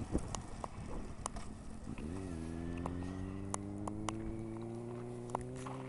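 Sport motorcycle engine running steadily, its pitch bending down and back up about two seconds in and then climbing slowly, with scattered sharp clicks and taps over it.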